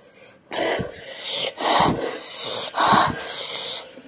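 A person breathing hard and sharply through an open mouth, a run of hissing, wheezy breaths about one a second, in pain from the burn of an extremely hot chili chip.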